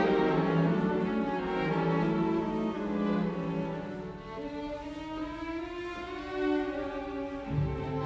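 Background music: slow bowed-string music with long held notes, and a deeper note coming in near the end.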